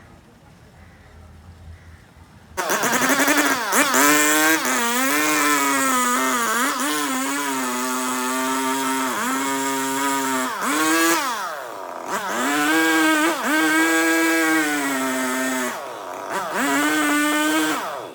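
Two-stroke chainsaw running at high revs, starting abruptly a little over two seconds in. Its pitch sags and recovers as it bites into wood, and the engine eases off briefly twice before revving up again.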